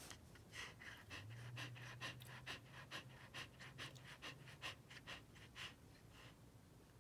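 Australian Shepherd panting faintly in quick, even breaths, about four a second, stopping about six seconds in.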